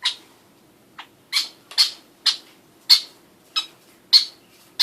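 Baby bird chirping: about nine short, sharp calls, roughly two a second, the begging calls of a fledgling being hand-fed.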